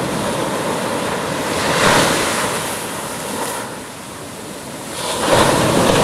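Ocean surf breaking on the shore. One wave crashes about two seconds in, the wash eases off a little, and the next wave breaks loudly about five seconds in.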